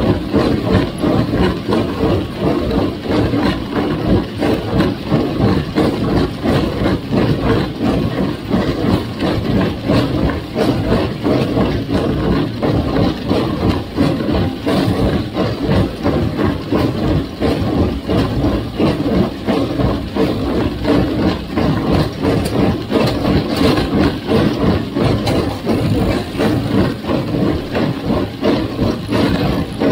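1958 Farmall 350 tractor's gasoline engine running steadily with an even, rapid pulse.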